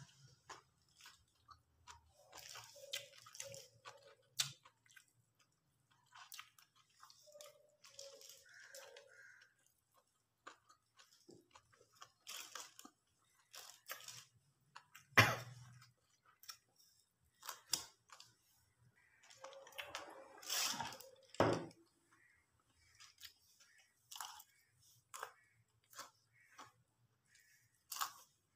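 A hand mixing rice on a crinkly paper-and-plastic food wrap, with eating sounds: scattered rustles, crackles and chewing, broken by sharp clicks, the loudest about 15 seconds in and again a little past 21 seconds.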